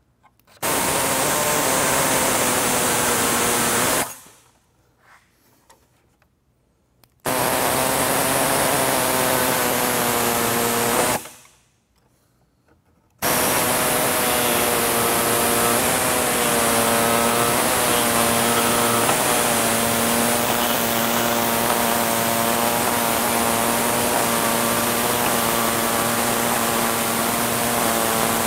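Small reciprocating saw cutting through a plastic grille's mesh, running as a steady whine with a strong hiss. It runs in two short cuts of about four seconds with short pauses between them, then cuts without stopping for the second half, its pitch wavering a little as the blade bites.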